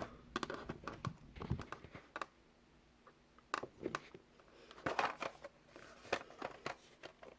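Hot Wheels packaging being handled and opened: scattered light clicks and crinkles of the plastic blister and card.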